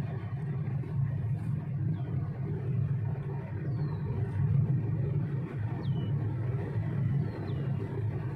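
Car driving on a paved country road, heard from inside the cabin: a steady low rumble of engine and tyres. A few short, high chirps that glide downward in pitch sound over it.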